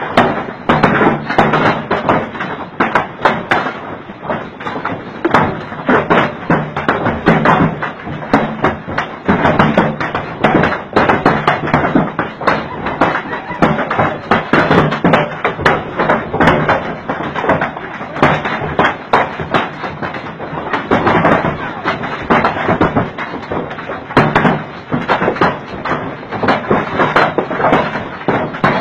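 Heavy hailstorm: a dense, unbroken clatter of hailstones striking hard surfaces, many sharp taps and thuds a second.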